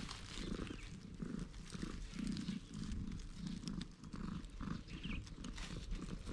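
A tabby-and-white cat purring as it is stroked on the head and chin, the purr coming in low pulses about twice a second. There is a light rustle of grass and dry leaves.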